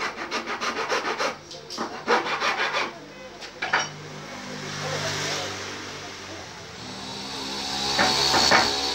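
Hand-shaping a curved wooden chair part. There are quick scraping strokes of a hand tool on the wood for the first three seconds, then a steadier rubbing as the piece is sanded by hand, loudest near the end.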